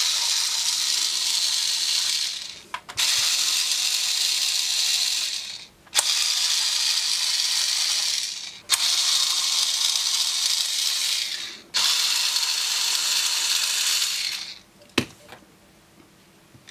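A small cordless electric screwdriver running in five steady spells of about three seconds each, backing screws out of a sheet-metal shield, with sharp clicks between spells and one last click a little before the end.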